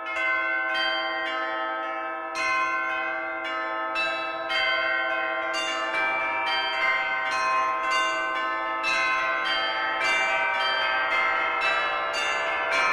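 Bells struck in a regular sequence, about two strokes a second, each stroke ringing on under the next.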